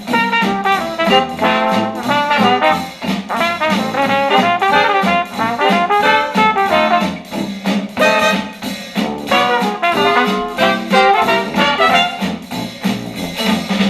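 Retro acoustic jazz with trumpet and trombone lines, played back through a Star Wars Millennium Falcon Bluetooth speaker.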